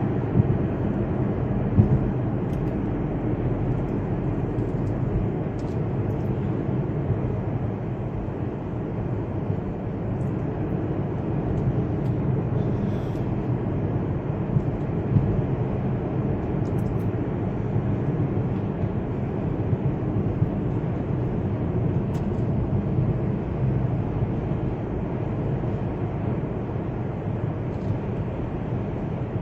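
Steady road and engine noise of a car driving, heard from inside the cabin, with a couple of brief knocks near the start.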